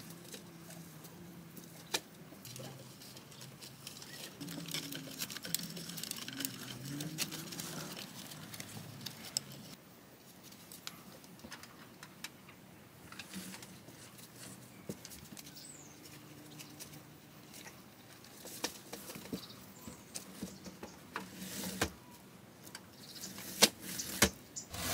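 Wooden sticks and a stick-built door being handled and set into place, giving scattered light clicks, knocks and rattles, with a few sharper clicks near the end.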